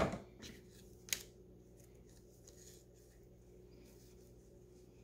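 Fabric scissors finishing a cut through felt and being put down: a loud knock at the start and a sharp click about a second in, then faint rustling of the felt being handled.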